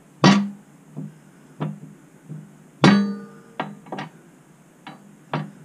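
Hammer taps on a steel motorcycle mainstand being driven onto its frame pivot lugs: two hard strikes with a brief metallic ring after the second, among several lighter taps. The stand is too tight a fit to go on.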